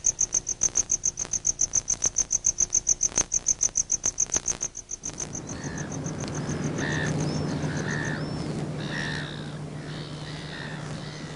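A cricket chirping in a fast, even trill of about six chirps a second, which fades about halfway through. Then silver gulls call several times over a steady low hum.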